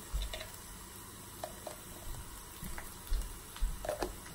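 Tarka of browned onion, cumin and red chillies frying faintly in oil in a small saucepan: a light sizzle with scattered small pops, and a few soft low knocks.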